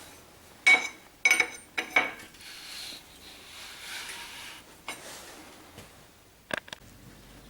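Metal engine parts and tools clinking and knocking on a workbench during engine assembly: a few sharp metallic clinks with a short ring, irregularly spaced, most of them in the first two seconds and one more near the end.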